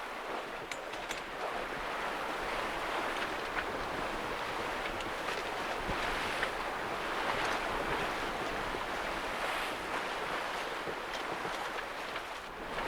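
Water rushing and splashing along the hull of a small sailing yacht running fast before a strong wind, with wind buffeting the microphone. The rush swells and eases with the waves.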